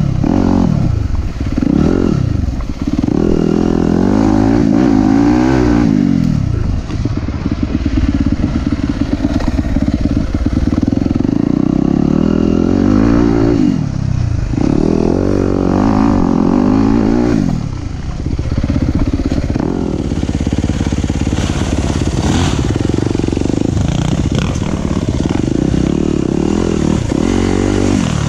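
Yamaha YZ250F's single-cylinder four-stroke engine heard from on board while trail riding, its pitch climbing and falling every couple of seconds as the throttle is opened and closed.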